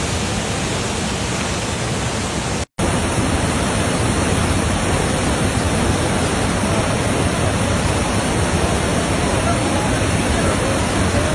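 A river in flood: fast, heavy water rushing in a steady, loud wash of noise. About three seconds in, the sound drops out for a split second at an edit, then the same rush goes on.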